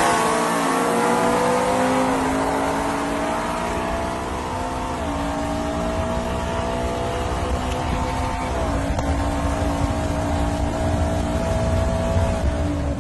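Pickup truck engine running at full throttle through the gears during a roll race. Its note climbs steadily and drops three times at the upshifts, then falls away near the end as the throttle comes off.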